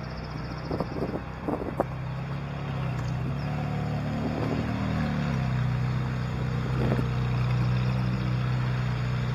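SoloWheel Glide3 (InMotion V8) electric unicycle riding, its motor giving a steady low hum that shifts in pitch a few seconds in and then settles. A few short clicks in the first two seconds.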